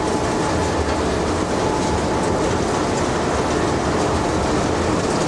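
A moving train heard from inside the locomotive cab: a steady, loud din of the locomotive running and wheels on the rails, with a deep rumble underneath.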